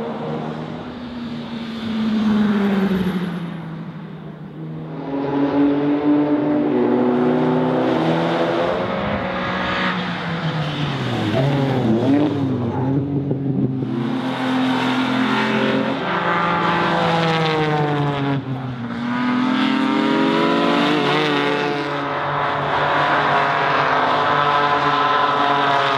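Classic racing cars' engines running hard on a circuit, the pitch climbing through each gear and dropping at the shifts, again and again. The sound eases for a moment about four seconds in.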